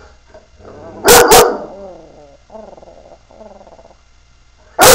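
Yellow Labrador retriever barking at a pumpkin it is wary of: a loud double bark about a second in, two softer, longer calls in the middle, and another loud bark at the very end.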